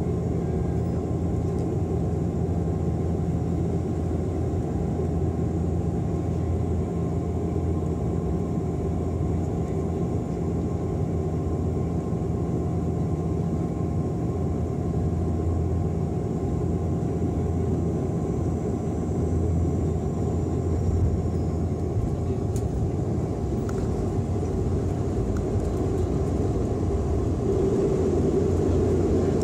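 Cabin noise of a Bombardier Dash 8 Q400 turboprop on final approach: the steady drone of its engines and propellers with a low hum. Near the end the noise swells as the main wheels meet the wet runway.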